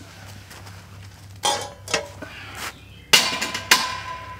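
Round wire grill grate clanking against a stainless steel fire pit stove as it is set on top: a few light clinks, then two sharp metal clanks about half a second apart near the end, with a brief ringing after them.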